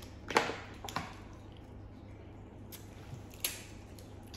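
Cooked crab and shellfish shells being cracked and pulled apart by hand. A few short, sharp cracks with wet squishing, the loudest about half a second in.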